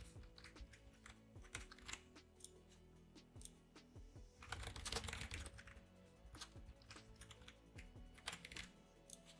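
Typing on a computer keyboard: quiet, irregular runs of key clicks, with a denser flurry about halfway through.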